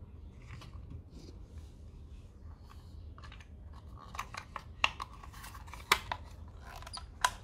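Plastic case of a Makita-style power-tool battery pack being handled and fitted together: light rattling and scraping, with a few sharp clicks in the second half as the top cover and its latch are pressed into place.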